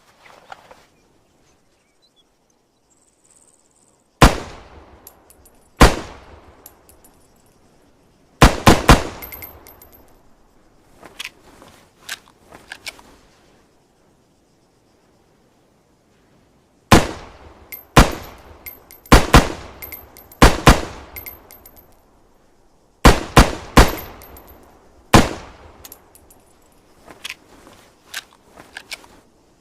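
SVD Dragunov semi-automatic rifle firing about a dozen single shots in two strings, each a sharp crack with a ringing tail, some fired in quick succession. Quieter clicks and knocks come between the shots, with faint high metallic pings after some of them.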